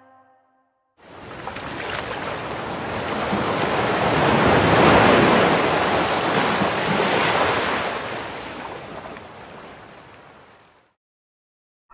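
Ocean surf: a wash of waves that swells in about a second in, is loudest around the middle and fades away about a second before the end.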